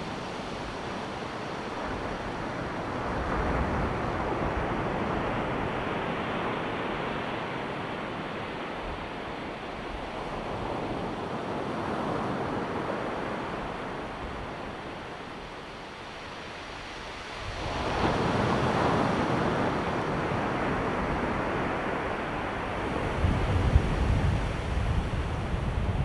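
Ocean surf washing onto the beach in slow swells, with a larger wave breaking suddenly about two-thirds of the way through. Wind buffets the microphone near the end.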